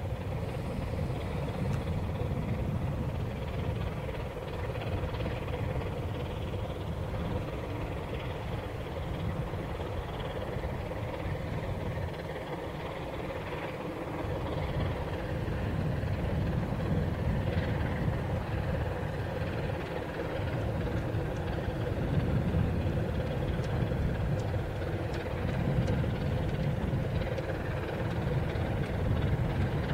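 Diesel engine of a passing inland cargo ship running steadily: a deep hum with a steady tone, getting louder in the second half as the stern comes closer.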